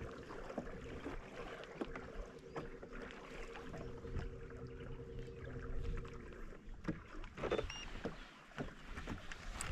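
A boat's motor humming with a steady tone, which stops about six seconds in, among scattered small knocks and clicks of gear on the hull. A short high beep sounds near the end.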